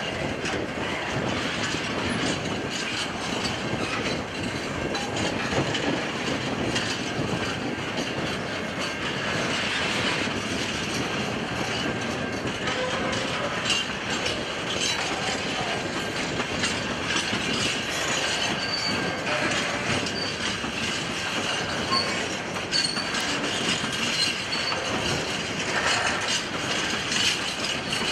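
Empty wheat wagons of a freight train rolling past, a steady clatter of steel wheels over the rails with short, high wheel squeals now and then.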